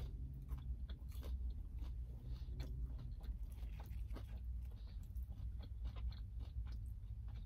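Close-miked chewing of a McDonald's Chicken McNugget dipped in barbecue sauce: soft crunching and many small mouth clicks over a low steady hum.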